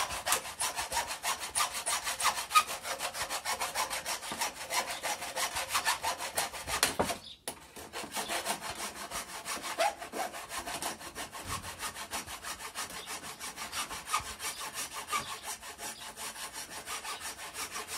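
Hacksaw sawing back and forth in rapid, even strokes in the gap between a wooden pallet board and its block, cutting through the nails that hold them together. There is a brief pause about seven seconds in, then the sawing resumes.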